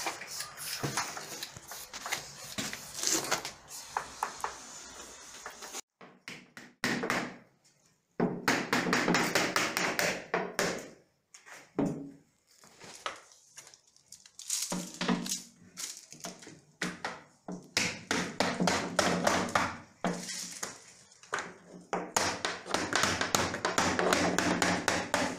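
Rubber mallet tapping on a PVC window frame, seating the glazing beads that hold the glass unit: runs of quick, sharp taps broken by short pauses.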